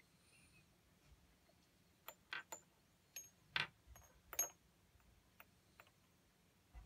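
Handling noise: a quick string of small clicks and light taps as wired earbuds and their cable are fitted into the mouth of a small glass bottle, most of them about two to four and a half seconds in, with a few fainter ones after.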